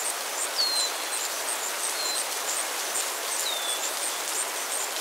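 Steady rain falling, with a bird repeating a short falling whistle three times, about a second and a half apart. A fast, regular high chirping, about three a second, runs over it.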